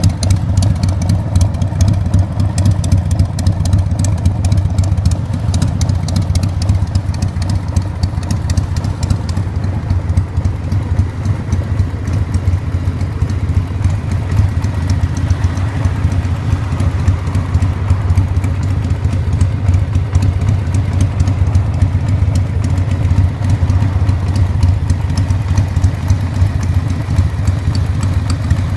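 1992 Harley-Davidson XLH1200 Sportster's 1200 cc Evolution V-twin idling steadily through genuine Harley-Davidson optional mufflers.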